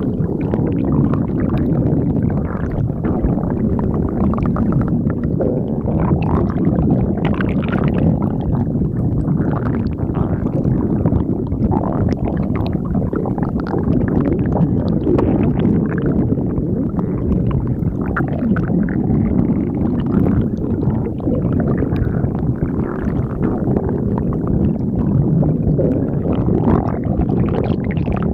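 Stomach growling continuously, low-pitched with irregular flickers and no pauses.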